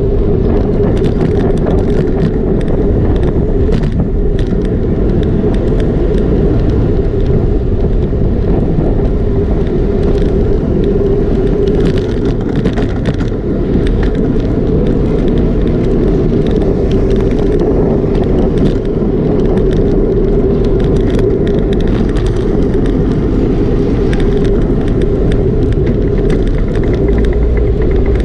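Bicycle riding through city traffic with the camera mounted on it: a steady rumble of tyres on asphalt and wind on the microphone, with a constant mid-pitched hum and a few faint ticks.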